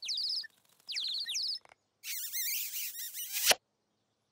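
Cartoon birds tweeting: quick runs of high, downward-sweeping chirps in two bursts, then a louder, noisier twittering about two seconds in that cuts off abruptly.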